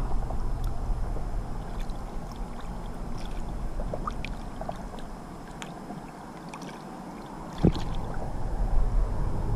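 Water sloshing and splashing against a kayak's side as a cobia is held in the water to be released, with scattered small splashes, a low wind rumble on the microphone, and a single sharp knock about three-quarters of the way through.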